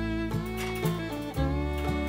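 Background music: an instrumental tune with plucked and bowed string sounds and a steady rhythm.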